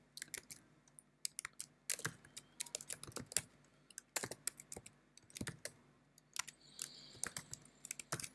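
Typing on a computer keyboard: irregular runs of key clicks with short pauses, and a longer pause of about a second and a half near the end.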